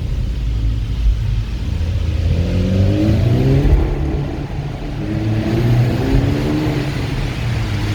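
Seat Leon Cupra R's turbocharged 2.0 TFSI four-cylinder engine accelerating hard under load, heard from the cabin with the windows open: the revs climb, drop briefly about halfway through at a gear change, then climb again. The engine pulls cleanly after the cylinder-4 misfire was repaired.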